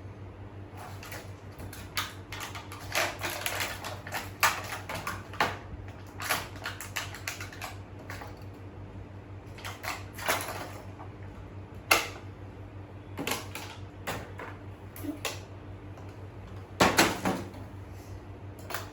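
Irregular clicks and taps of small plastic toy cars and their packaging being handled and set down, over a steady low hum.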